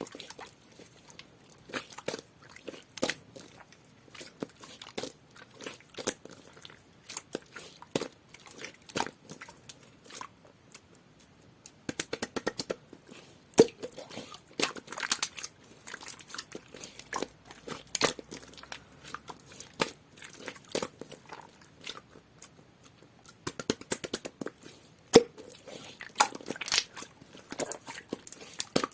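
Clear, jelly-textured slime being squeezed, pressed and stretched by hand, giving irregular wet clicks, pops and crackles from trapped air bubbles.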